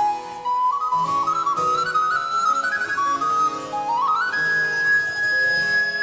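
Recorder playing an early Baroque sonata melody over harpsichord accompaniment. The line climbs step by step, then about four seconds in makes a quick upward run to a long held high note.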